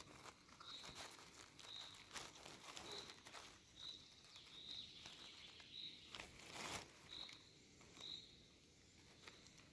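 Faint rustling and handling noises in forest-floor leaf litter, loudest about six to seven seconds in. Behind them a short high chirp repeats about once a second.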